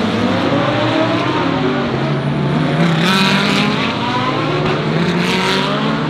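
GT3 race car engines running at moderate revs, with several rising revs as cars accelerate. There are short rushes of sound about three seconds in and again near five seconds as cars pass close by.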